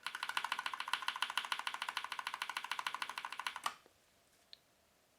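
Rapid, evenly spaced clicking on a mechanical keyboard with Kailh brown switches, about ten clicks a second for nearly four seconds, then stopping; one faint click follows about a second later.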